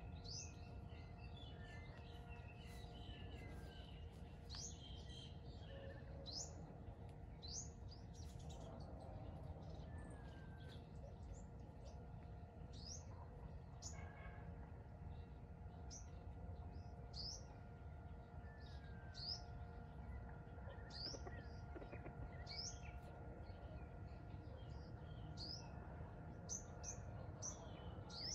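Faint bird chirps: short, high notes that fall in pitch, repeated roughly every second, over a faint steady hum and low outdoor background noise.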